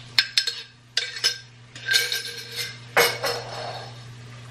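Metal spoon clinking and scraping against a jar and the rim of a stainless steel pot as thick sauce is spooned out, with several quick clinks in the first second or so and a louder clatter about three seconds in. A steady low hum runs underneath.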